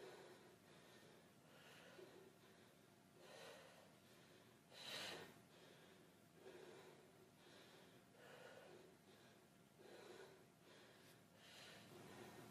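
A woman breathing hard from exercise: faint breaths about every one and a half seconds, with one stronger exhale about five seconds in.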